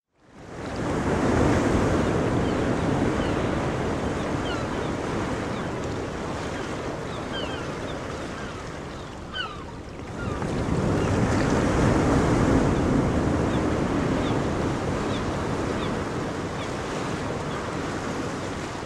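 Ocean surf: a steady rush of breaking waves in two long swells, each building and then slowly fading, with faint short high chirps over it.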